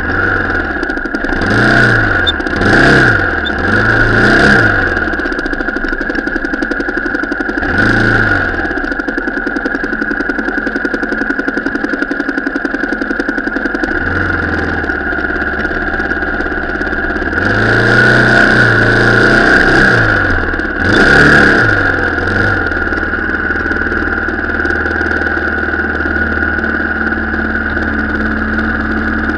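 Car engine running and revving up and down in short bursts, as when picking over an off-road track. The revs rise and fall several times in the first few seconds, once at about eight seconds, and again repeatedly from about seventeen to twenty-two seconds, with a steady engine drone in between.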